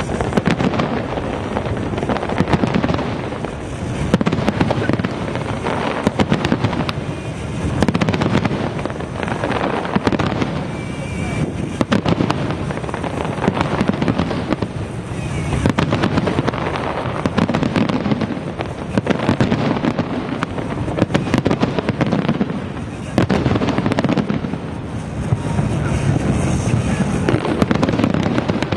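Fireworks display: a dense, continuous barrage of bangs and crackling bursts, swelling and easing every couple of seconds.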